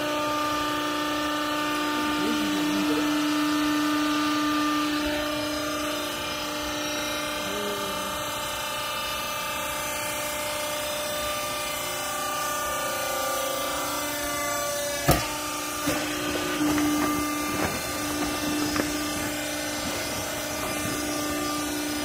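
Hydraulic power unit of a vertical used-clothes baler running with a steady hum. One sharp knock comes about fifteen seconds in, and a few lighter knocks follow.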